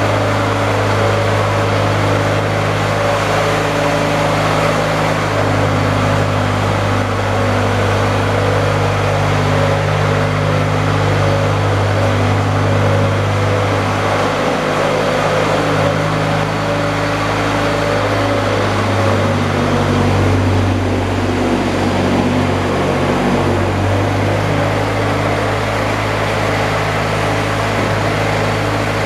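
Engine running steadily, a low hum whose pitch shifts slightly a couple of times.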